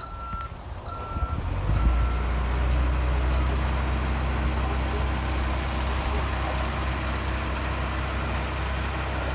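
A reversing alarm beeps three times in the first two seconds. A heavy machine's diesel engine then grows louder about two seconds in and runs steadily and low.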